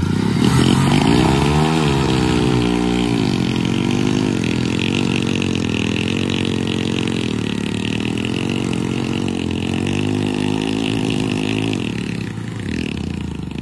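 Two modified single-cylinder commuter motorcycles, a Hero Splendor and a Hero HF Deluxe, revving hard while they pull against each other on a rope in a tug-of-war, the near bike's rear tyre spinning in the dirt. The revs rise and fall repeatedly under full load, then ease off about 12 seconds in.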